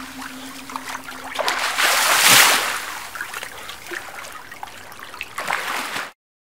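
Splashing, trickling water that swells to its loudest about two and a half seconds in, then eases off and cuts off suddenly just before the end.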